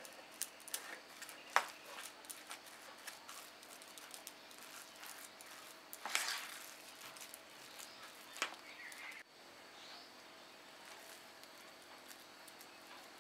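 Spoon and fingers mixing a thick kebab batter in a steel plate: faint scattered clicks of the spoon against the metal and soft scrapes, with a louder scrape about six seconds in.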